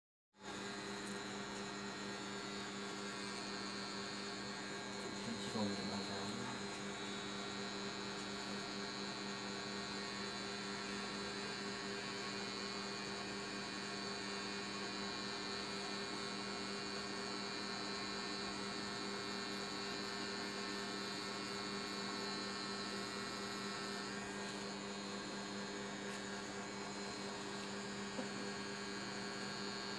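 Pen-style tattoo machine with a cartridge needle running steadily as it works ink into skin, a continuous electric hum. A brief, slightly louder sound breaks in about six seconds in.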